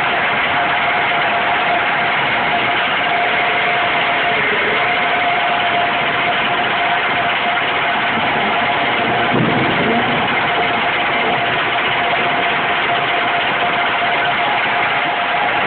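Steady forging-line machinery noise: a dense, even hiss with a constant mid-pitched whine running through it.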